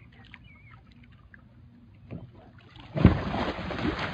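A person tipping a plastic kayak and falling into the water: a small thump about two seconds in, then a loud splash about three seconds in, with water churning after it.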